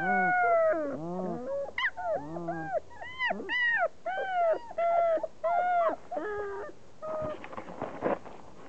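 Four-week-old German shepherd puppies whining and whimpering in a string of short cries that rise and fall in pitch, several overlapping at times. Near the end the cries give way to about a second of rustling noise.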